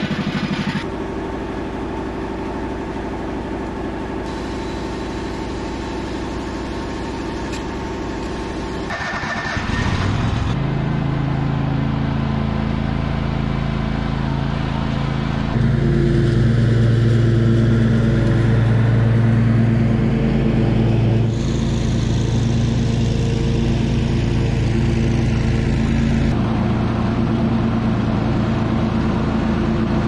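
An electric air compressor motor runs with a steady hum for about nine seconds, switched on to pump up a flat mower tyre. Then a John Deere ride-on mower's engine runs, stepping up in loudness about 16 seconds in and shifting a couple more times.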